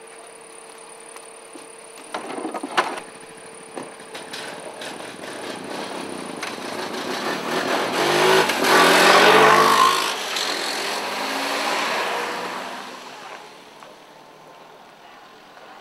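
A quad ATV's engine approaches, passes close by and fades away. A few sharp knocks come a couple of seconds before it.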